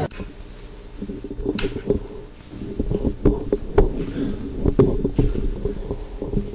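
Footsteps and small knocks on a hard floor, irregularly spaced, over a steady low hum.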